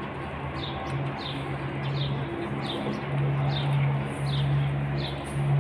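Small birds chirping repeatedly, about two short falling chirps a second, over a louder low hum that swells and fades in stretches.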